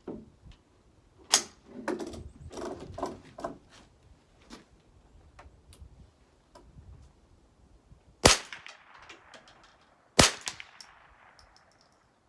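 Rifle handling clicks and knocks as the shooter settles in, then two rifle shots about two seconds apart, each with a ringing echo that dies away.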